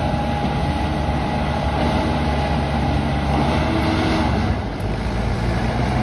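ACE AX 124 backhoe loader's diesel engine running steadily as the machine drives and turns, with its loader bucket and backhoe arm raised.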